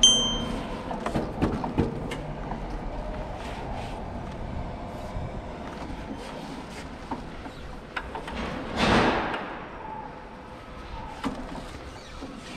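Electric pallet truck being driven through a warehouse: a steady motor hum with scattered small clicks and knocks. A short high beep comes at the start, and about nine seconds in there is a loud hiss lasting about a second that falls in pitch.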